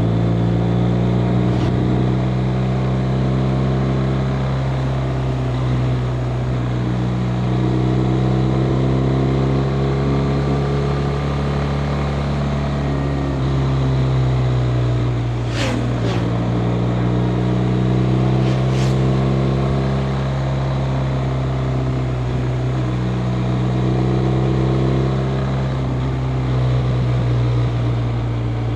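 BMW R 1250 RT's boxer twin engine running steadily under way, its pitch shifting slightly with changes in speed. About halfway through, two brief whooshes go past, the first with a quick drop in pitch.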